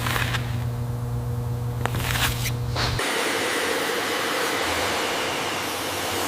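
A steady low machine hum with a few short whooshes, cut off abruptly about three seconds in by a steady rushing hiss, like air or spray blowing.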